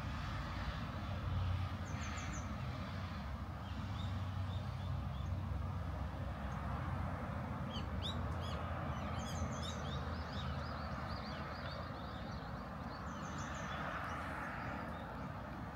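Small birds chirping in short bursts, with a busier flurry of calls about eight seconds in, over a steady low rumble of road traffic.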